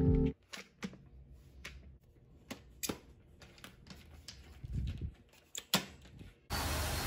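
Scattered plastic clicks and knocks as the parts of a Deerma stick vacuum cleaner are fitted together, the metal extension tube going onto the handheld unit. Near the end the vacuum's motor switches on suddenly and runs steadily.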